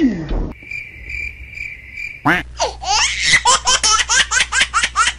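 A cricket-chirping sound effect, a steady high tone with soft even pulses, for about a second and a half. Then, from about two seconds in, high-pitched giggling: a quick run of rising squeals about four a second.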